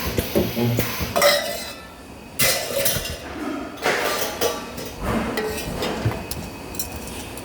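Irregular metallic clanking and clinking of metal parts and tools being handled during spot-welding work, with a few short noisy bursts about two and a half and four seconds in.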